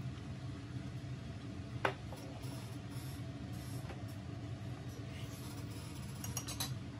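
Light clicks of wooden chopsticks against a porcelain dipping bowl over a steady low room hum: one sharp click about two seconds in, a fainter one a couple of seconds later, and a quick cluster near the end.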